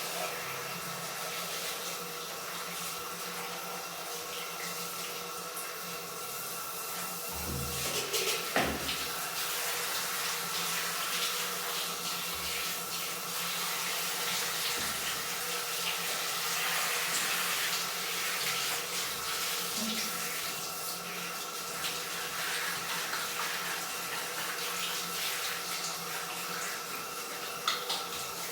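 Tap water running steadily into a sink or tub during a cat's bath, with a couple of knocks about eight seconds in.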